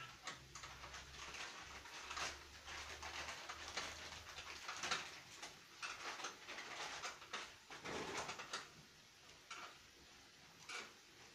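Faint, irregular clicks, knocks and rustles of hands working at the top of a car's front strut in the engine bay, with a low steady hum in the first few seconds.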